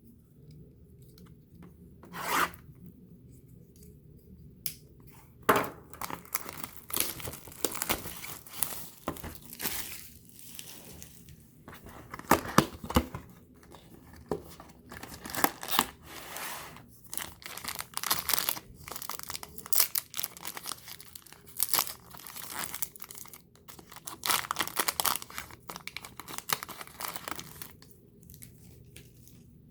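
Trading-card packaging being torn open and crinkled: sharp tearing and crinkling of wrapper, a few isolated rips at first, then near-continuous with short pauses from about five seconds in until near the end.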